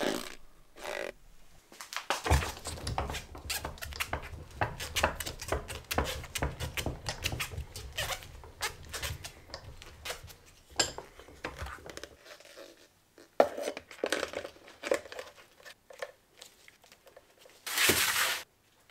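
Clicking, clattering and rustling of plastic and metal as a car cabin blower motor is handled and clamped in a bench vise, with a low rumble under the first half and a short loud burst of noise near the end.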